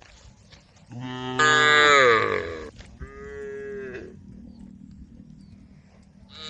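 Cows mooing: a long, loud call starting about a second in that falls in pitch, then a shorter, quieter call about three seconds in.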